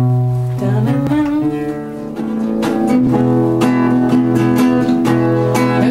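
Acoustic guitar strummed in a steady rhythm, its chords ringing. The strumming grows fuller about two to three seconds in.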